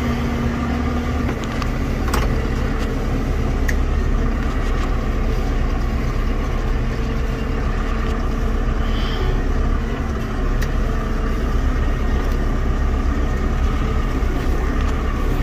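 Tractor engine running steadily, heard from inside the closed cab, with a few sharp clicks.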